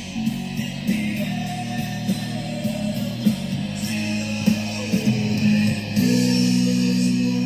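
Guitar-led music with sustained low notes, played through a Bose F1 Model 812 powered loudspeaker to test it after repair.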